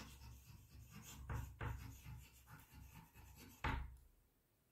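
Chalk scratching on a blackboard as a word is handwritten: a run of faint, short strokes, with one sharper tap near the end.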